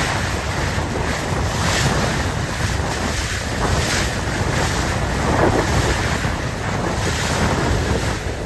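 Strong wind buffeting the microphone over the steady wash of sea waves, a loud unbroken rush with no distinct events.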